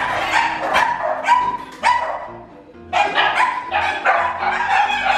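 Dogs barking frantically behind a door, set off by the doorbell, with a short break about two and a half seconds in before the barking starts again.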